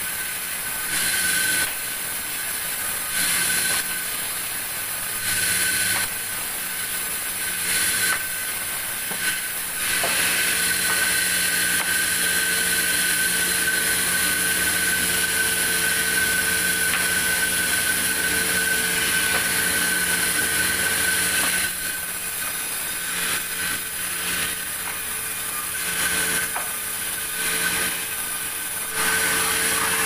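Sawmill vertical band saw running with a steady whine while it cuts a large log. Short louder spells come every couple of seconds at first, then a long continuous cut runs from about a third of the way in to about two-thirds, and louder cutting resumes near the end.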